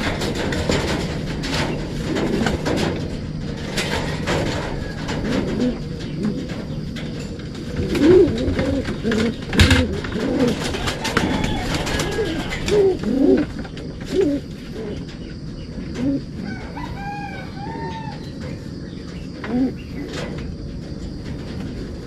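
Racing pigeons cooing in a loft, with many short low coos overlapping. Wing flaps and sharp knocks come through as birds are caught and handled, with the loudest knock about ten seconds in.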